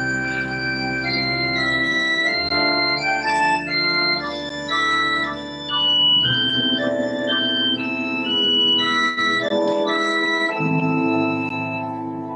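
Organ playing a slow piece: held chords changing about once a second under a moving melody, with the low bass notes dropping out and returning.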